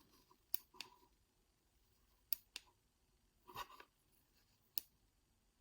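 A handful of faint, sharp clicks from handling a rechargeable LED headlamp, spread over a few seconds in near silence.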